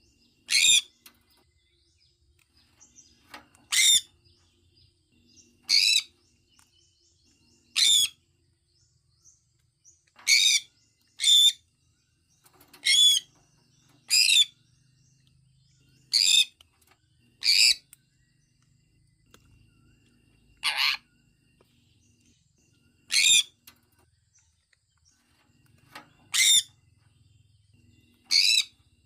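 Sun conure giving short, high-pitched chirping calls, one every one to three seconds, about fourteen in all.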